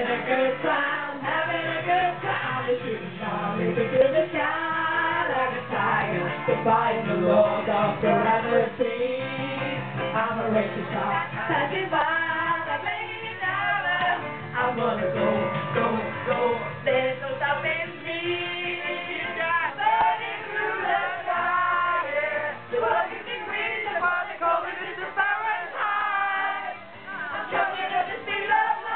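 Music with singing voices throughout.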